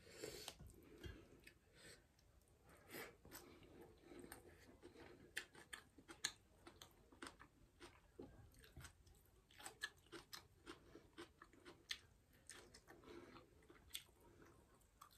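Quiet chewing and mouth sounds of a person eating by hand, with many short wet clicks and smacks scattered throughout.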